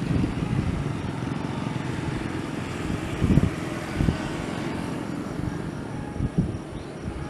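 Steady engine rumble that slowly fades, broken by a few brief low thumps about three, four and six seconds in.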